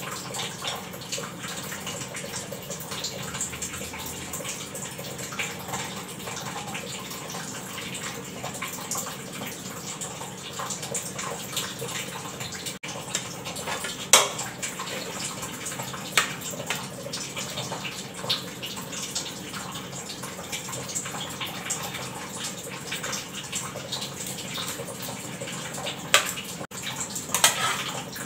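Spoons and ladles clinking and scraping against steel pots and bowls as dal, greens and curry are served out onto plates, with a few sharp clinks about halfway through and again near the end, over a steady hiss.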